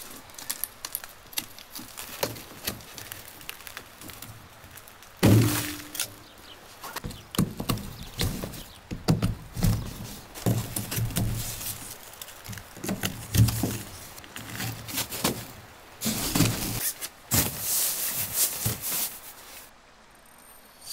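A folding camp cot being assembled by gloved hands: repeated knocks and clicks from its frame and legs, with the cot's fabric rustling. The loudest thunk comes about five seconds in.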